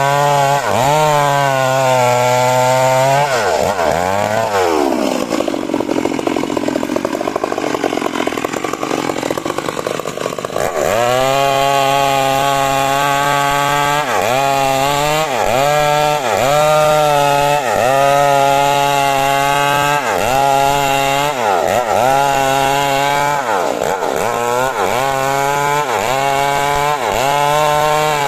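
Two-stroke chainsaw cutting coconut wood at high revs, its pitch sagging and recovering about once a second as the chain bites and is eased. For a few seconds in the middle it drops to a lower, rougher note, then picks up again to the same rhythm.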